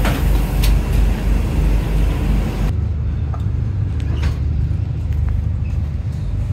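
Cabin noise inside an Endeavour diesel railcar: a steady low engine drone and rumble with a few clicks and rattles. About two and a half seconds in, the higher hiss cuts off abruptly, leaving the low drone as the train moves past the platform.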